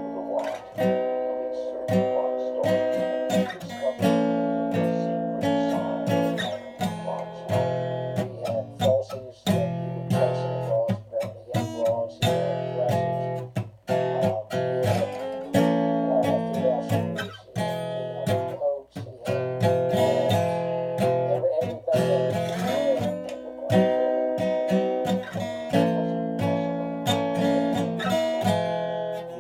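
Acoustic guitar playing, chords strummed and picked in a steady progression.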